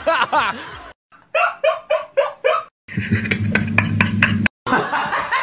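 A person laughing in about five short, evenly spaced bursts, between stretches of voice; about halfway through, a low steady hum with a quick run of sharp clicks.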